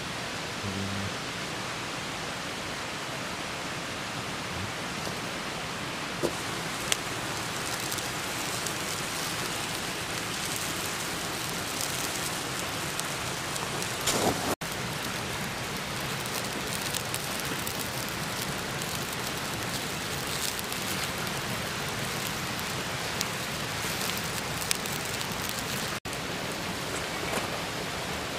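Steady, even outdoor hiss with a few small ticks and knocks scattered through it.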